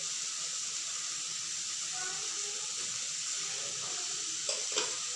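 Vegetables sizzling steadily in melted butter in a frying pan, with a couple of light clicks near the end.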